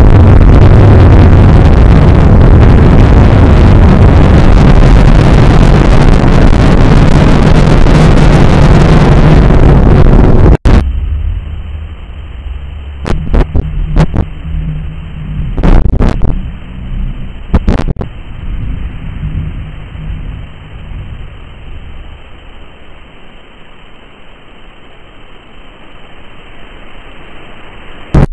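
Loud, harsh wall of noise that cuts off abruptly about ten seconds in, giving way to a quieter muffled rumble with a few sharp cracks, which fades.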